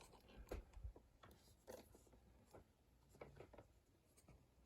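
Faint, scattered clicks and light knocks of handling a padlock and bench vise.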